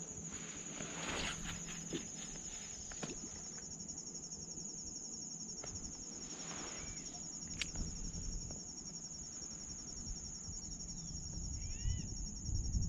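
Insects chirring steadily in a high, even, fast-pulsing tone, with a few faint knocks from handling the fishing rod on the kayak and a couple of short bird chirps near the end.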